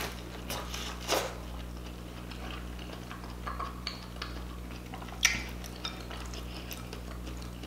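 Close-miked eating: biting and chewing corn on the cob, with a few short sharp clicks and taps of hands and food against a glass bowl, the loudest just after five seconds, over a steady low hum.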